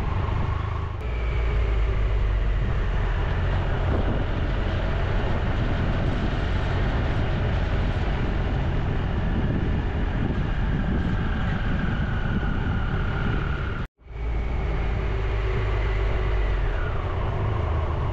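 Motorcycle running along the road, its engine rumble mixed with wind and road noise, with a faint whine that slowly falls in pitch. The sound drops out for an instant about 14 seconds in.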